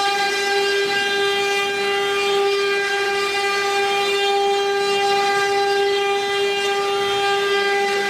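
Spindle motors of a 12-spindle cylinder-engraving CNC router running at a steady speed: a constant high-pitched whine over a steady rushing noise.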